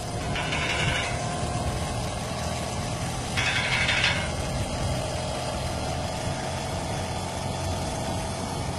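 Motorcycle engine running steadily at idle, with the noise the owner is showing in it; twice, briefly, a louder higher-pitched hiss or rattle rises over the engine.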